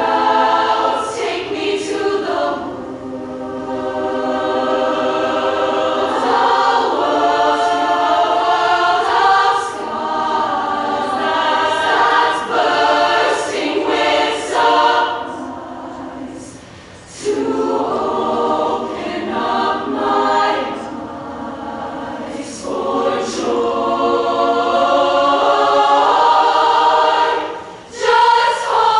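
Women's show choir singing in harmony, holding long chords in phrases, with a brief break about halfway through and another near the end.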